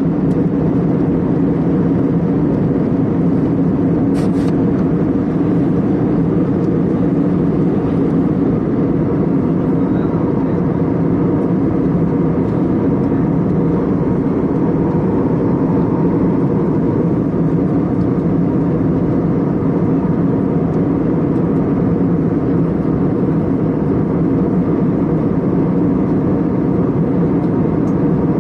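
Airliner cabin noise in flight: a steady, unchanging low drone of engines and rushing air.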